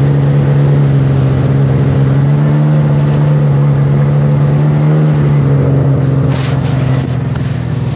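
Sea-Doo personal watercraft engine running at a steady speed. About six seconds in, a few short sharp noises break in and the engine sound drops slightly.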